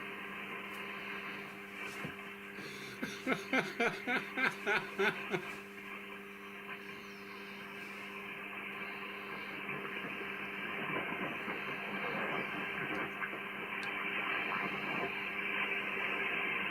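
Shortwave receiver's audio tuned to an 80 m ham band signal: band hiss cut off above about 3 kHz with steady low tones, and about three seconds in a run of roughly eight quick rhythmic pulses with sweeping chirps, as the signal that draws pictures on the waterfall passes through the receiver. Fainter sweeping chirps return later on.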